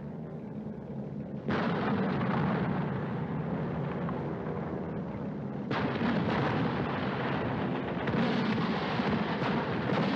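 Air-raid sound effects on an old film soundtrack: a steady low engine hum, then about one and a half seconds in a sudden loud din of gunfire overhead that grows louder again around six and eight seconds.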